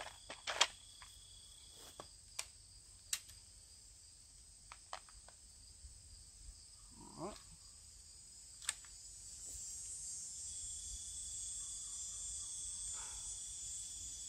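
Insects buzzing high and steady in the woods, growing louder about two-thirds of the way through. A few light clicks and taps come from handling the air rifle and its scope.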